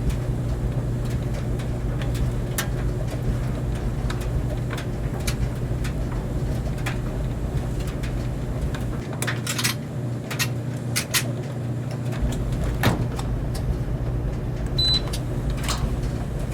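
Clothes dryer running: a steady low hum with irregular clicks and taps throughout.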